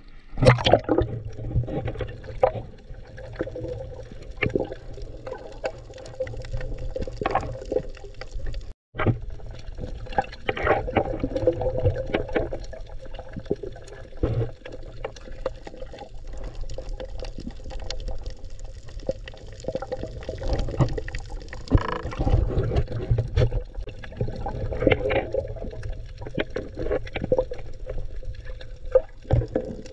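Muffled underwater sound picked up by a diver's camera: water rushing and gurgling around the housing, with scattered small clicks and knocks. The sound cuts out for a moment about nine seconds in.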